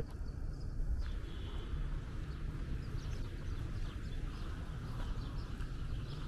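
Rainy-day street ambience: a steady low rumble with scattered light ticks and taps.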